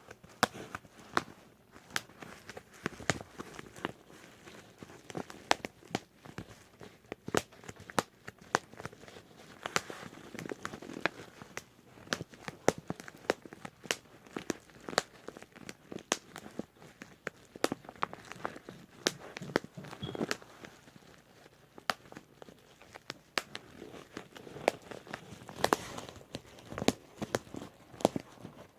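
Bubble wrap being popped by hand: sharp irregular pops, several a second, with the plastic sheet crinkling between them.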